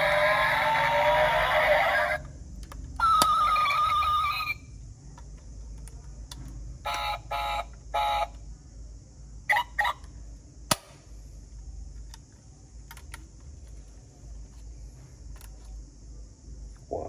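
Diecast Porsche model car's electronic sound unit playing a revving engine sound that cuts off about two seconds in, then a steady horn-like tone, then a few short electronic blips. Small sharp clicks follow as the toy's door and rear engine lid are worked open.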